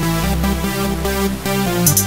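Electronic music: held synth chords over a steady bass, with hi-hats coming in near the end.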